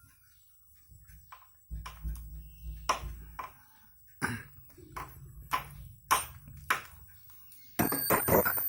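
Small toys dropped by a parrot and hitting a hard surface: a scattered series of sharp clicks and pings, with a quick clattering flurry near the end.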